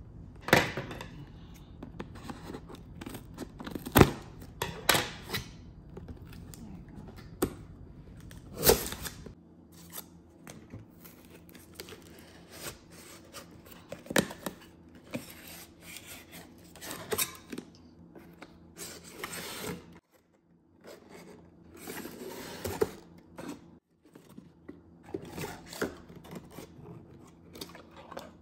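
Unpacking a cardboard box of ceramic bowls: cardboard flaps and dividers scraping, rustling and tearing, with sharp taps and knocks as the bowls are worked loose from the packing.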